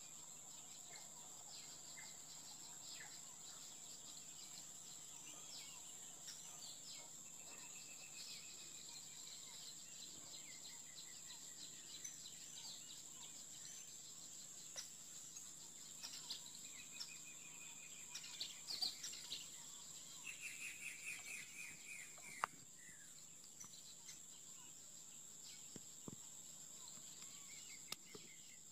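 Faint outdoor ambience: a steady, high-pitched insect drone, with birds chirping and giving short trills now and then, busiest and loudest about two-thirds of the way through.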